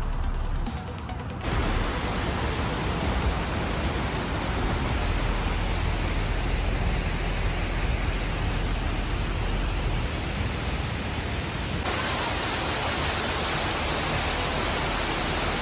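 Steady rushing road and wind noise of a car driving at speed, heard from inside, rising abruptly about a second and a half in.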